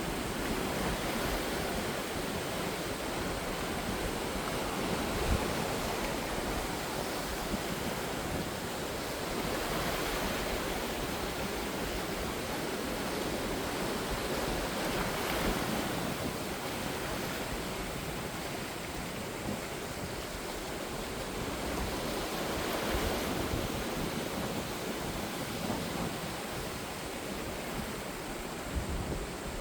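Ocean surf: waves breaking and washing in a continuous rush, swelling louder every several seconds as each wave comes in.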